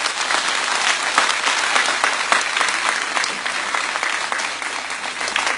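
An audience applauding, a dense, steady patter of many hands clapping.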